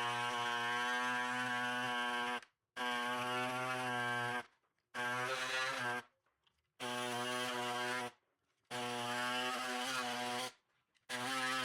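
A power tool cutting the centre section out of a factory truck grille, running with a steady humming whine in about six bursts of one to two and a half seconds, stopping and starting abruptly between them.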